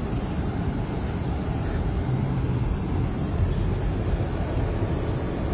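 Steady low rumble of a car driving through floodwater, heard from inside the cabin.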